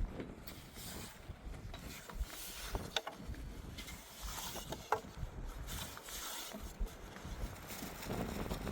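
Gusting wind with a low rumble, and a few short, sharp clicks and knocks scattered through it.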